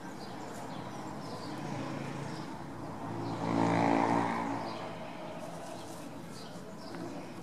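Street background with a motor vehicle's engine swelling up and fading away about three to five seconds in, as a vehicle passes. Birds chirp faintly throughout.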